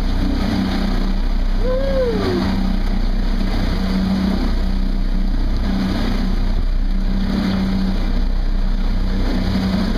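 Fishing boat's engine running steadily while under way, with the wash of the wake. A short voice-like call rises and falls about two seconds in.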